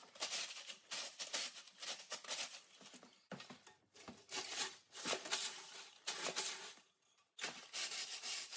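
Chimney brush scraping up and down inside a sheet-metal stovepipe section, scrubbing built-up soot out of it, in repeated rough strokes about one or two a second with a brief pause near the end.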